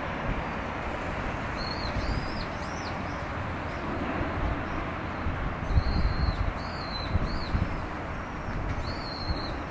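A bird calling with short, high, arched chirps in clusters of two or three, over a steady hiss and a gusty low rumble of outdoor background noise.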